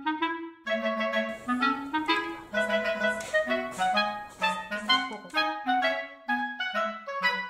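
Background music: a woodwind melody played in short, separate notes.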